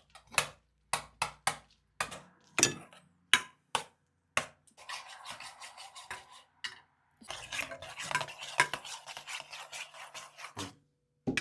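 A spoon stirring a sour cream and garlic sauce in a bowl. It first clinks against the side in separate strokes, then scrapes round the bowl more steadily from about halfway through.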